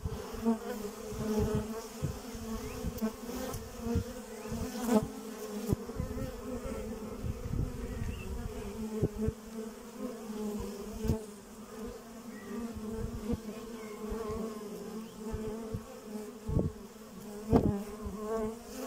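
Honey bees buzzing at a hive entrance: a steady, low wingbeat hum from many bees flying in and out, with brief louder moments and soft low knocks scattered throughout.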